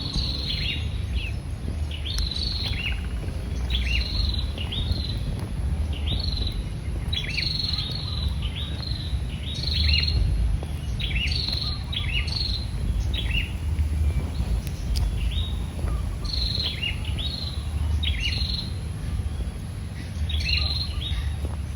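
Small birds chirping over and over: short, high calls that sweep downward, coming in little clusters about every second, over a steady low rumble.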